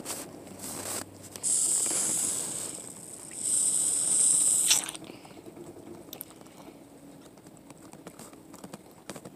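Air hissing through the spout of a plastic drinking cup held to a boy's mouth, in two bursts of about a second each, the second cutting off sharply.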